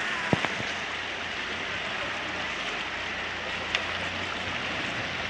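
Chevrolet Niva SUV driving slowly into deep muddy floodwater: a steady rush and splash of water around its wheels, with the engine running low underneath. Two sharp clicks, one just after the start and one about two-thirds of the way through.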